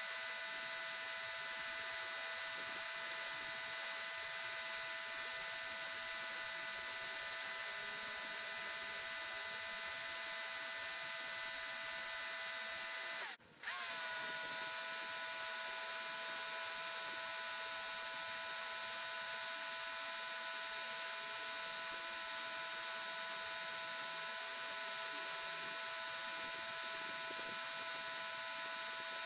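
Portland electric pressure washer running steadily as it sprays, a constant whine over a hiss. It cuts out for a moment about halfway through and resumes.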